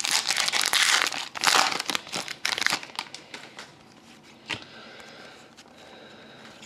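A foil trading-card pack crinkling as it is torn open, for about the first three seconds. The sound then drops away to soft clicks and slides as the cards from the pack are thumbed through.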